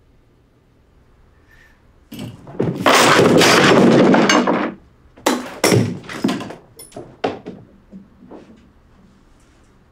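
Things being smashed with a stick: a long, loud crash and clatter begins about two seconds in, then a string of sharp blows and knocks that grow fewer and fainter.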